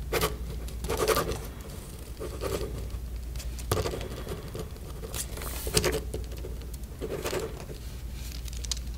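A pen writing on paper: irregular scratchy strokes with short pauses between them.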